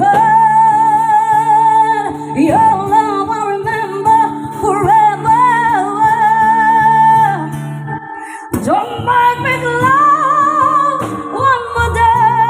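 A woman singing long held, wavering notes with vibrato over a steady backing track, with a short break about eight seconds in.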